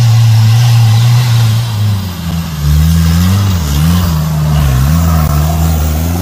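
Off-road 4x4's engine running at steady revs, then dropping about two seconds in and rising and falling repeatedly.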